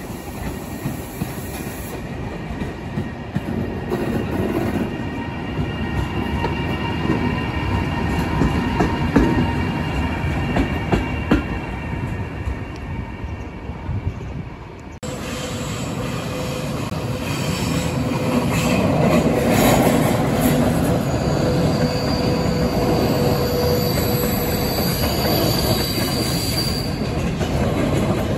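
Train rolling past on the rails, a steady rumble with squealing wheels. The sound changes abruptly about halfway through, as another stretch of train noise begins and builds.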